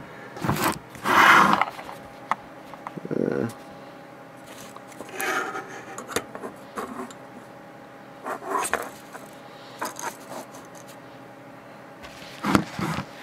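Handling noise as a hand-held camera is set down and repositioned on a cluttered workbench, with scattered rubs, scrapes and knocks of objects being shifted. The loudest knock comes about a second in, and another near the end, over a faint steady hum.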